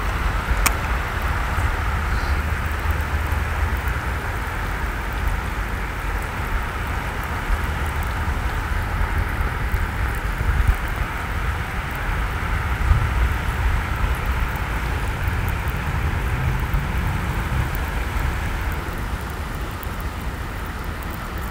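Steady hiss of rain falling on open water, with a low rumble underneath and a single faint click about a second in.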